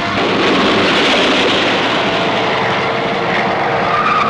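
Stock-car engines running together as a loud, steady wash of noise. A held musical tone comes in near the end.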